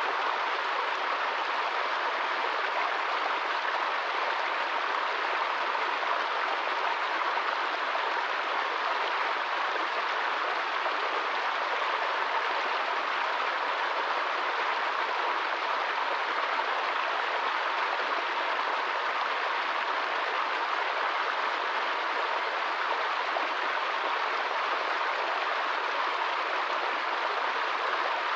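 Small brook tumbling over rocks in a little cascade: a steady, even rush of running water.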